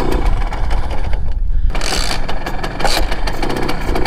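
Simson S51's small two-stroke single-cylinder engine running with a rapid, uneven beat while the rider works the throttle. It is not taking throttle cleanly: the sound thins out briefly about a second in, then comes back in short bursts.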